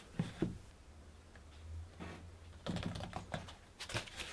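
Light clicks and taps of a small bowl of plywood panels and pencils being handled: two taps near the start, then a quick run of clicks in the second half.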